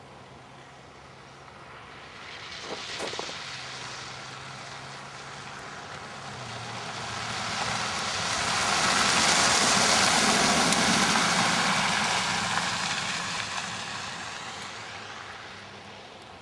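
A car driving past on the road: tyre and engine noise swells as it approaches, peaks about ten seconds in, and fades as it moves away. A smaller swell from another passing vehicle comes about three seconds in.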